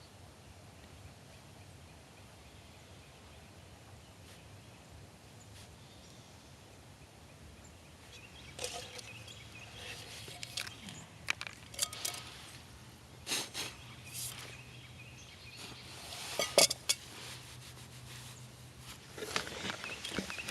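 Quiet outdoor ambience, then from about eight seconds in irregular rustling and crunching noises, scattered and uneven.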